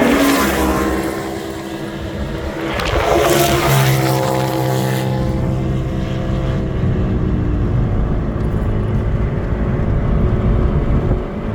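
Polaris RZR side-by-side off-road vehicles speeding past at high speed, their engine note falling in pitch as they go by. From about five seconds in, a steady low rumble of wind on the microphone takes over.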